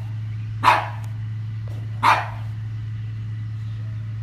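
Pug barking twice, short sharp barks about a second and a half apart, over a steady low hum.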